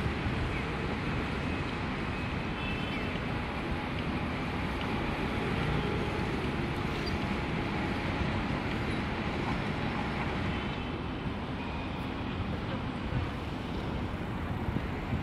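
Steady outdoor street ambience: a low hum of distant traffic, with some wind on the microphone.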